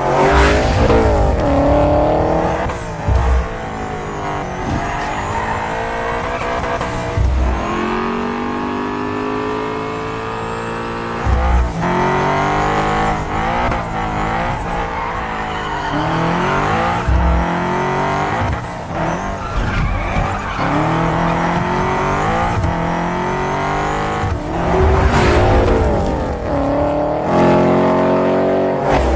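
2014 Ford Mustang engine and exhaust revving hard, its pitch repeatedly climbing and then dropping back as it runs up through the gears. Tires squeal and skid at times.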